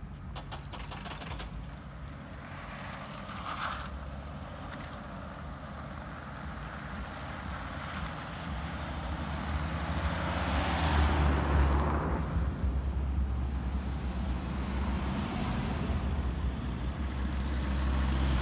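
Cars driving past on a snow-covered road, their engine and tyre noise swelling as each comes close: one about ten to twelve seconds in, another near the end. A brief run of quick ticks sounds at the very start.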